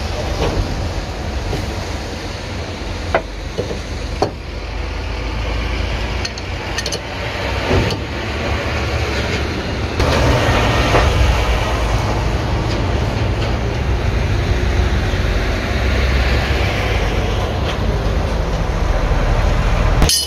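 Diesel bus engine idling steadily, with a few sharp metallic clinks of a wrench on its fittings a few seconds in; the engine gets a little louder about halfway through.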